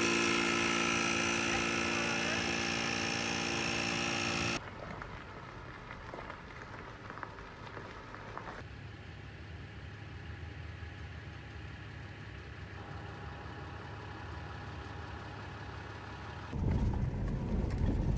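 A small electric motor buzzing steadily, likely a 12-volt portable tire compressor inflating a flat tire; it cuts off abruptly about four and a half seconds in. A faint rumble follows. Near the end comes the low, rough rumble of a vehicle driving on a gravel road, heard from inside the cab.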